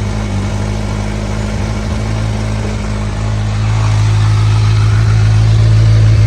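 2014 Kawasaki Ninja 1000's inline-four engine idling steadily through its standard exhaust pipes, just after a cold start; the sound grows louder about four seconds in.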